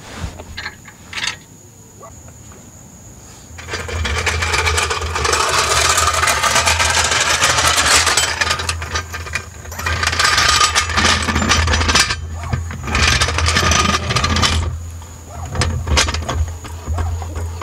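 Two short clicks, then a machine or power tool running loudly for about eleven seconds: a steady low hum with a rough, rattling noise over it that rises and falls. The rattling stops near the end while the hum carries on a little longer.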